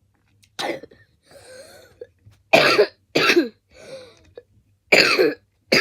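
A person coughing repeatedly in a fit: a run of about five loud coughs with softer sounds between them.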